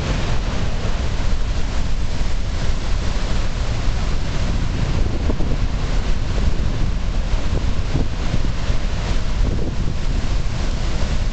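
Horseshoe Falls at Niagara, a huge volume of water pouring into the gorge, heard close up as a steady, loud rush that is heavy in the low end. Wind rumbles on the microphone over it.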